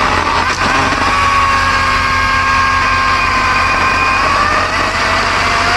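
Bucket truck engine running steadily, with a steady, slightly wavering whine on top of its low hum.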